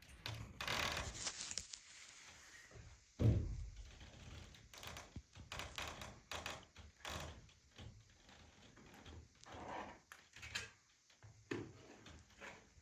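Scattered knocks and scrapes from someone moving about and working on a greenhouse roof, with one heavier thump about three seconds in.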